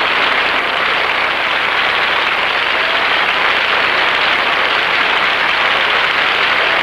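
Studio audience applauding, steady and loud, after a song ends.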